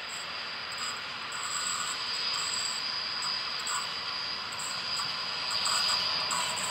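ZSSK class 757 diesel locomotive approaching at the head of a passenger train, its engine and the running noise of the train growing steadily louder.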